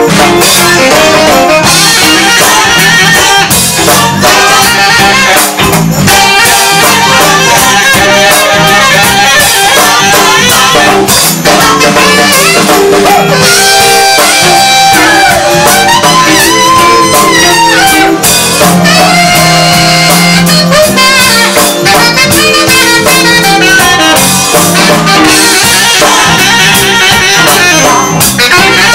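Live funk band playing an instrumental stretch without vocals, saxophone out front over electric guitar, bass and drum kit.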